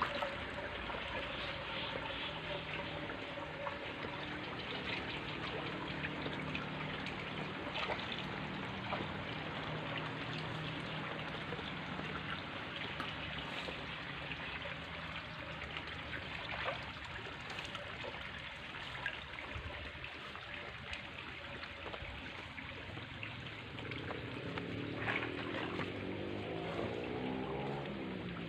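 Water pouring and trickling steadily as a fish pond is drained. A low steady hum lies under it in the first half, and a wavering tone comes in about four seconds before the end.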